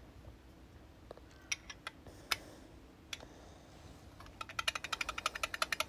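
A few light clicks as a black enamelled metal Schmincke Horadam travel palette and its clip-on water tank are handled. About four seconds in, a rapid rattle of sharp clicks begins as the palette is shaken and the loose, wobbly water tank knocks against it, a sign that the tank does not seat properly.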